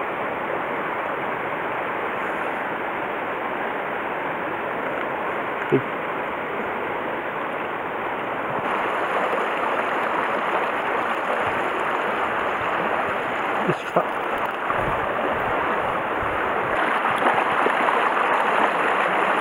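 Shallow mountain stream rushing over stones: a steady wash of running water that grows a little louder about nine seconds in. A few brief knocks sound partway through.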